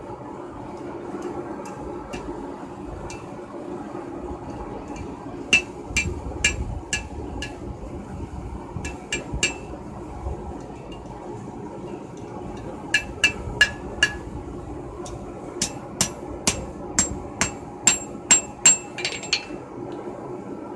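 Blacksmith's hand hammer striking hot steel held in tongs on an anvil, in several bursts of blows, each with a bright metallic ring; the longest burst, about a dozen blows, comes near the end. A steady hum runs underneath.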